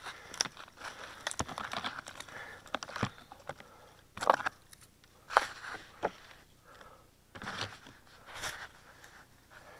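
Dry twigs and branches snapping and brushing against the camera as it is worked loose from a thicket: irregular sharp cracks and short rustles, the loudest a little past four seconds in and again about a second later.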